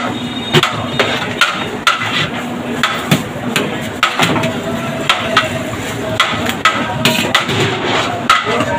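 Metal serving spoons knocking and scraping against a large steel biryani platter as rice and chicken are scooped into plastic takeaway boxes: sharp clanks at irregular intervals, about two a second.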